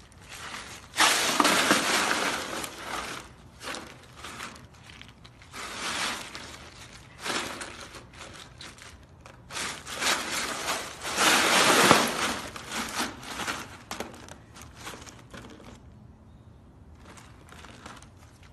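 Loose ice cubes crunching and clattering in a plastic wading pool as a husky rolls and wriggles in them. The sound comes in bursts, loudest about a second in and again around ten to twelve seconds in, and dies down to faint crackles near the end.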